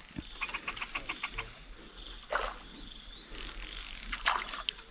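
Steady high-pitched insect drone. About half a second in comes a quick run of about seven sharp clicks, and later two brief louder swishes.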